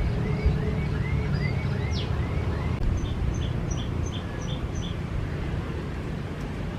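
Small birds chirping over a steady low rumble of wind: first a run of short rising chirps about three a second, then from about three seconds in a different call of short, high double notes at a similar pace.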